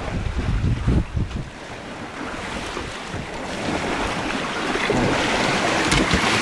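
Wind buffeting the microphone at first, then the rush of sea water churning along the side of a moving boat, growing louder from about halfway through.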